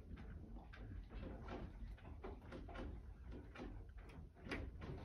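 Faint, irregular rattling and knocking, several small clicks a second, with a louder knock near the end. It is the room's doors and fittings shaking in a slight earthquake.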